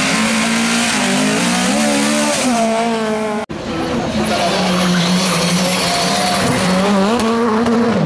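Rally car engines revving hard, the pitch rising and falling through gear changes. The sound breaks off with a brief dropout about three and a half seconds in, then a second rally car is heard revving and accelerating.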